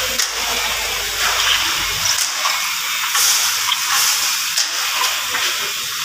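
Concrete pump working on a floor slab pour: a steady hiss with a few scattered knocks.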